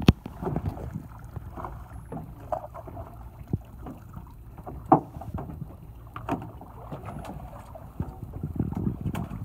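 Fishing boat's engine running steadily at idle, with a few sharp clicks and knocks scattered over it.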